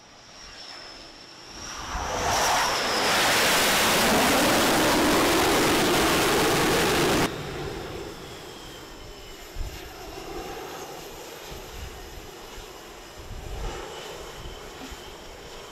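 F/A-18 fighter jet engines on a carrier flight deck: a loud jet roar builds about two seconds in, holds, and cuts off abruptly about seven seconds in. A quieter steady jet noise with a thin high whine follows.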